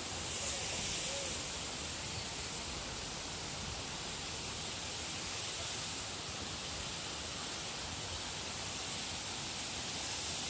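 Steady, unbroken rushing of water, an even hiss with no distinct events.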